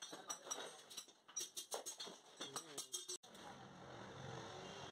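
Stainless steel tubing being handled, giving a run of quick metallic clicks and taps; about three seconds in the sound cuts to a steady low hum.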